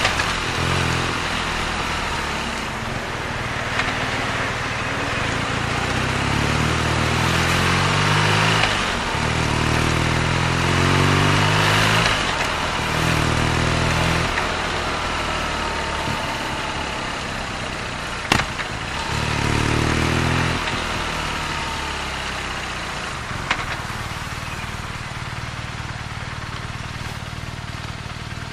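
BMW R nineT's 1170 cc boxer-twin engine and exhaust pulling away and accelerating in several short bursts, the pitch rising in each, then easing off to a steadier low-revving run near the end. A sharp click sounds about two-thirds of the way through.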